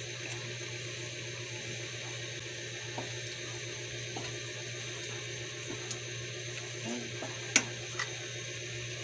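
Wooden spatula stirring thick cream sauce in a metal pot, with light scrapes and small knocks against the pot, the sharpest about seven and a half seconds in and another just after. A steady hiss runs underneath.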